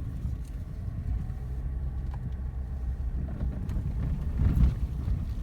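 A car being driven on a rough back road: a steady low rumble of engine and tyres, with a few light knocks and a louder bump about four and a half seconds in.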